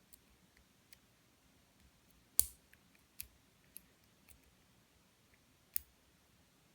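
Scattered small metallic clicks and ticks of lock-picking tools working a Master Lock No. 3 padlock, with a sharper click about two and a half seconds in and another near the end.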